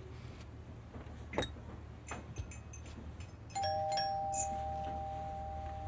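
Two-note doorbell chime, a higher note followed at once by a lower one, both ringing on steadily, about halfway through.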